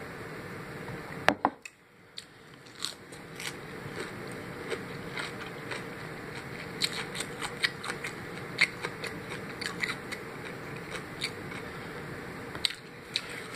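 Close-up chewing of crispy fried chicken: irregular crunches and small mouth clicks over a steady background hum, after a sharp knock just over a second in.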